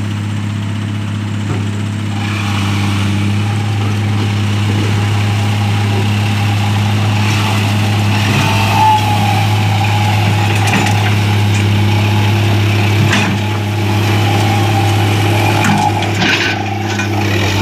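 Diesel engines of an excavator and an Isuzu dump truck running steadily under load as the excavator bucket pushes the stuck truck through deep mud. The sound grows louder about two seconds in.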